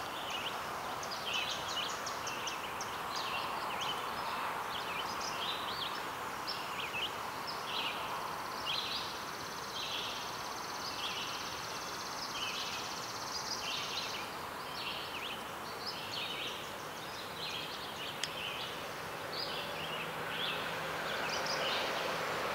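Outdoor background: a steady hiss with short, high chirps repeating irregularly about twice a second. A faint low hum joins near the end.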